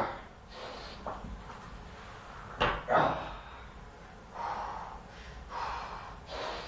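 A barbell loaded with about 400 lb set down on the floor: two heavy knocks about half a second apart, a little under three seconds in. After it, the lifter breathes hard three times.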